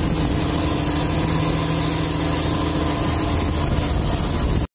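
Fishing boat's engine running steadily under way, with a thin steady high-pitched whine above it. It cuts off suddenly near the end.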